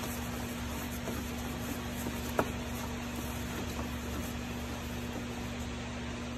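Steady mechanical hum with one steady tone underneath, and a single sharp click about two and a half seconds in, while a diesel fuel filter canister is being spun off by hand.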